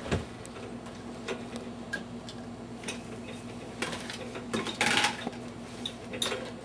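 Dishes knocking and clinking in the wire racks of an open dishwasher as a toddler handles them: scattered light knocks, with a louder clatter about five seconds in.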